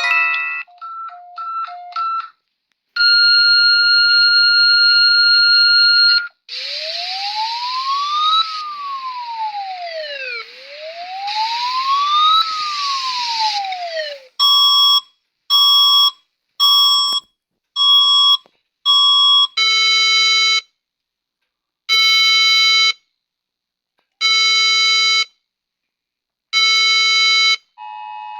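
A run of different alarm and siren signals one after another. First a steady tone lasts about three seconds. Then a siren wails, rising and falling twice, followed by a string of short beeps about once a second and four longer beeps spaced about two and a half seconds apart.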